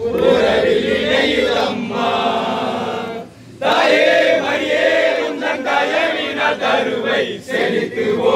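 A group of men singing a Tamil hymn to Mother Mary together in unison, with a short pause for breath about three seconds in.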